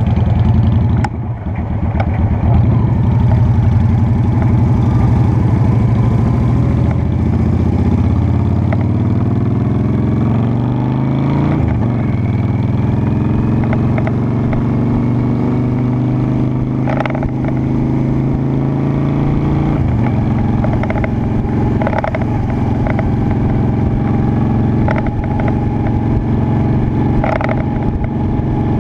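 Honda Shadow Spirit 750 V-twin motorcycle engine under way, pulling up through the gears: its pitch climbs steadily and drops back at a gear change about a second in, another near the middle and a third about two-thirds through, then holds fairly steady.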